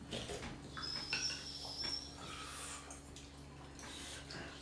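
Faint wet slurping and sipping of chicken thukpa noodle soup as noodles and broth are drawn into the mouth.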